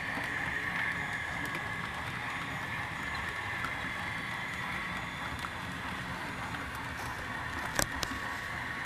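Model Garratt steam locomotive and freight cars running along the layout track, a steady running noise of the motor and wheels on the rails. Two sharp clicks come close together near the end.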